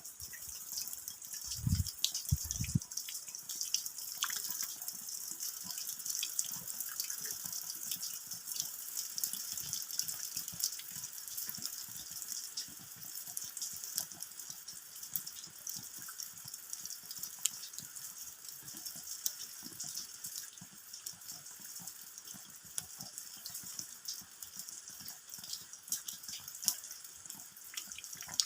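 Steady rain falling, with a dense patter of individual drops hitting the ground and dripping. Two brief low thumps come about two seconds in.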